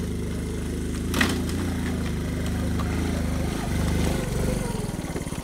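Small motorcycle engines running: one idles steadily close by while a Honda C90's single-cylinder four-stroke putters down a stony trail towards it, its note shifting near the end as it pulls up. A sharp knock about a second in.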